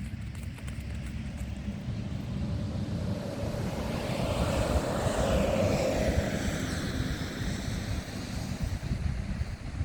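Wind buffeting the microphone throughout, with a passing engine noise that swells to its loudest about five seconds in and then fades away.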